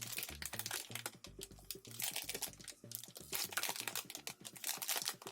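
Plastic bag crinkling and rustling as a keyboard is pulled out of it, with many quick clicks and taps from handling the keyboard.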